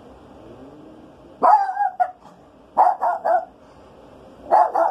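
Small Maltese dog barking in short bursts: a couple of barks about a second and a half in, a quick run of three near the middle, and two more near the end.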